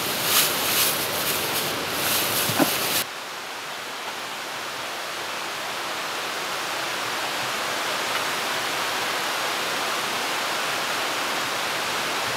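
A small dog chewing a treat, with sharp crackly clicks, for about three seconds. Then hot water pours steadily from a kettle into an instant noodle cup: an even rushing hiss that slowly grows a little louder.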